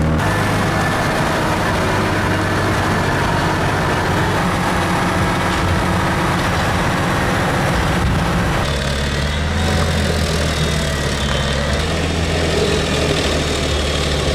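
Heavy diesel machinery running steadily, the engine of a crane-fed roadside wood chipper. About nine seconds in, the engine note shifts to a different steady tone with a faint whine above it.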